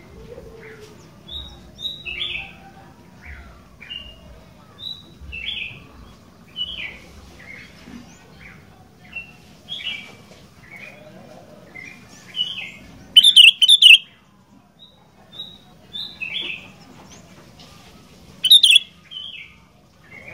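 Sooty-headed bulbul (kutilang) singing: short, clear whistled phrases about once a second, with two much louder, harsh, distorted calls about two-thirds of the way in and again near the end.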